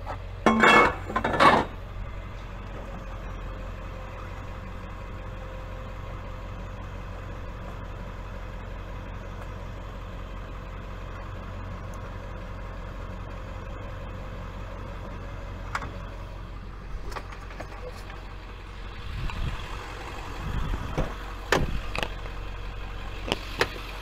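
Tow truck engine idling steadily, with two loud metallic clanks about a second in and scattered knocks and clicks later from the rear wheel-lift gear as the towed car is secured.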